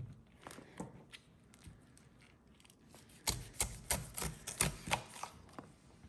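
A kitchen knife cutting down through a pineapple's tough rind and flesh: a few scattered clicks, then about three seconds in a quick run of sharp crunching clicks lasting around two seconds.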